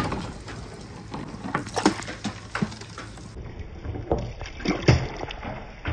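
Water streaming down a rain-gutter marble run while a large ball rolls along the channel, knocking a few times against it, then a cluster of louder knocks and a splash near the end as the ball reaches the tub of water at the bottom.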